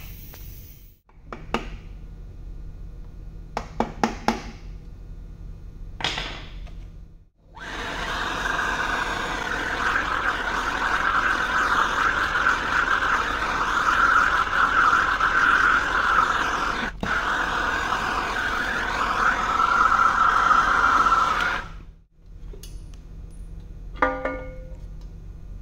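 Handheld gas torch burning with a steady, loud hiss for about fourteen seconds while its flame heats the engine block, then cutting off abruptly. Before it come a few short tool clicks and knocks, and near the end a single sharp metallic clink with a brief ring.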